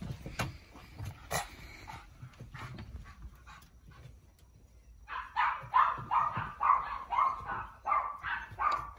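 An excited Cavalier King Charles Spaniel puppy gives a quick run of high-pitched, cat-like yelping cries during rough play, about three a second, starting about halfway through. Before that there are a few knocks and scuffles of paws and bodies on wooden decking.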